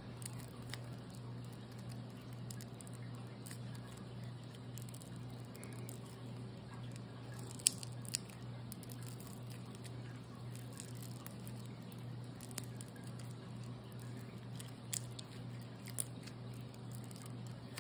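Putty-based cracking slime being squeezed, stretched and pulled apart by hand: faint squishing with scattered small crackles, and a few sharper cracks about eight seconds in and again near the end. A low steady hum lies underneath.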